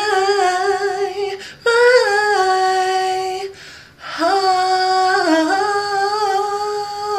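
A solo voice singing unaccompanied, stretching one word of a gospel line into long held notes with vibrato, in three phrases with short breaths between.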